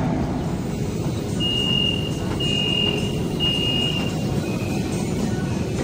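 Metro train door-closing warning beeper: three high, evenly pitched beeps about half a second long and a second apart, then a fainter fourth, signalling that the doors are about to shut. Underneath is the steady low hum of the standing train car.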